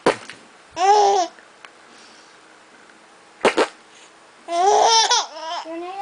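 Five-month-old baby laughing in two bursts, a short one about a second in and a longer, louder one near the end. Each burst follows a brief, sharp fart noise made for her, one right at the start and one about three and a half seconds in.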